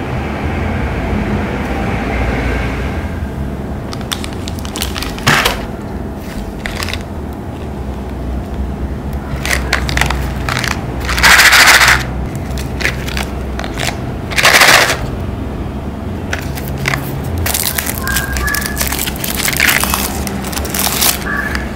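Plastic candy wrappers being crinkled and opened: sharp crackling rustles, with two louder bursts about eleven and fourteen seconds in, over a steady low hum.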